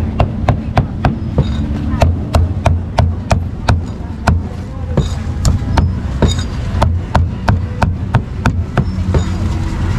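Cleaver chopping barbecued pork on a thick round chopping block, in quick, even strokes at about three a second. A steady low rumble of background noise runs underneath.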